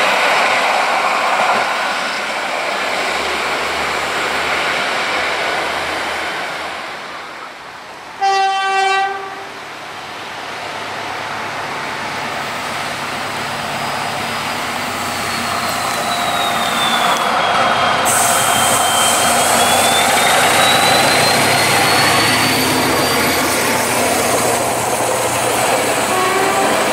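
An SA138 diesel railcar hauling a coach runs off into the distance, fading away. About 8 s in, an SM42 diesel locomotive sounds its horn once for about a second, then its engine grows steadily louder as it approaches and passes with its coaches, a thin squeal dipping and rising in pitch as it comes.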